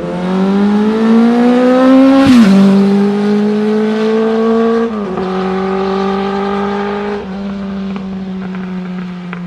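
Honda CB400Four's inline-four engine running through a Yoshimura short exhaust under way. The note climbs, drops sharply at a gear change about two seconds in, then holds nearly steady with two smaller drops later.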